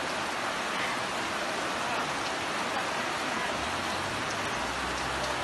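Steady, even hiss of rain and fast-flowing brown floodwater.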